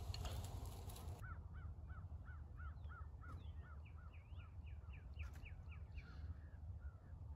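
Crows cawing: after a short rustle stops about a second in, a run of caws at about two a second, with a second, higher-pitched crow cawing faster over it in the middle, above a low wind rumble.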